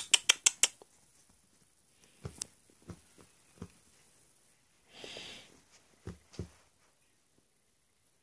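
Handling noises while a Shih Tzu puppy is held and petted on a lap: a quick run of about six sharp clicks at the start, a few dull knocks, and a short breathy puff about five seconds in.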